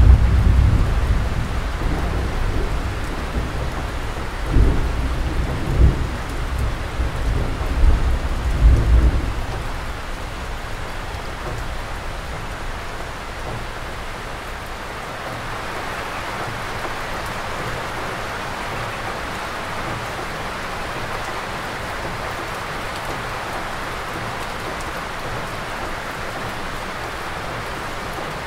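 Steady rain falling, with low rolling rumbles of thunder over the first nine seconds or so that then die away. The rain's hiss swells a little about halfway through.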